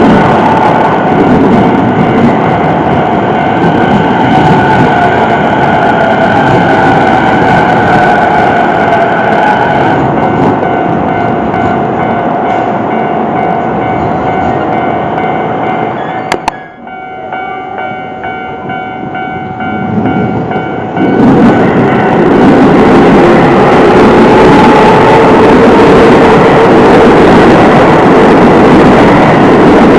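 Keio Line electric trains passing close by at a level crossing, wheels and motors running loudly, with the crossing's warning bells ringing steadily over them. About halfway the noise drops suddenly for a few seconds, then rises again as another train passes.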